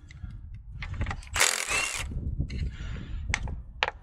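A cordless power tool runs in one short burst about a second and a half in, undoing a fastener on the EGR cooler's coolant pipe. Two sharp clicks follow near the end.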